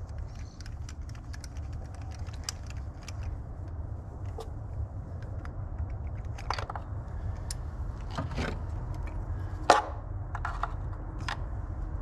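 Light metallic clicks and clinks from a spark-plug socket and extension turned by hand, threading a new spark plug into the engine, with one sharper click about ten seconds in. A steady low hum runs underneath.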